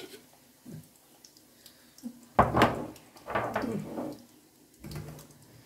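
Kitchenware being handled: a sharp knock about two and a half seconds in, followed by a second or so of clatter, and a softer thump near the end.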